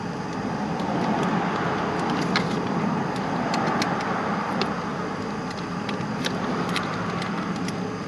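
A road vehicle passing, its noise swelling and then easing, with scattered light clicks over it.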